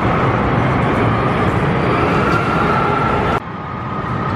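Steel roller coaster train rolling along the track: a steady roar of wheels with a high hum in it. It cuts off abruptly about three and a half seconds in, and a quieter rolling sound then builds up again.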